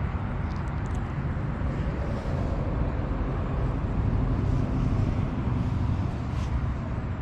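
Motor vehicle engine noise: a steady low rumble that swells a little past the middle.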